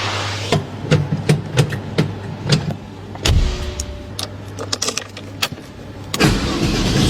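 Sounds around a stationary car: a run of sharp clicks and knocks over a steady low hum, with a deeper low rumble coming in a little over three seconds in and growing louder near the end.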